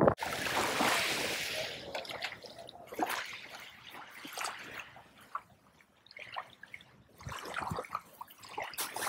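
Small waves washing up and drawing back over a pebble beach, swelling and fading in a few uneven surges.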